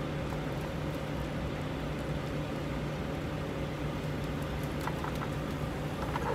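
Diced bacon sizzling steadily in a cast iron pan on a portable gas stove, with a few light scrapes of a plastic spatula near the end, over a steady low hum.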